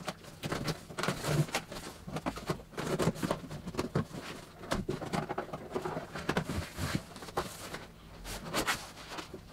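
A large cardboard shipping box being cut open: packing tape slit with a small blade, and cardboard flaps scraped, rustled and tapped, in many quick irregular clicks and scrapes. The sound is played fast-forwarded.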